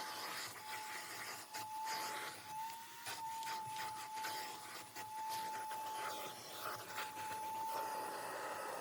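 Steady whine of a small cleaning-machine motor, with irregular scrubbing and rubbing strokes over it.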